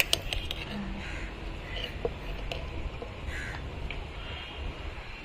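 Steel spoon clicking and scraping against a glass pickle jar at the start, then a crow cawing faintly twice over a steady low background rumble.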